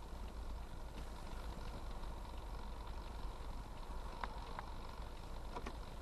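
Steady low rumble of a car's engine and road noise heard inside the cabin as it moves slowly in traffic, with a few faint short clicks near the end.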